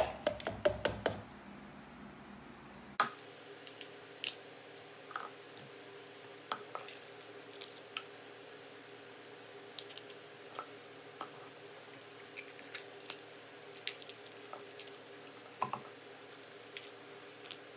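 Fingers tearing the seeds and stems out of raw poblano pepper halves: scattered small wet snaps, crackles and squishes, at irregular intervals. A sharp knock and a quick flurry of clicks come right at the start.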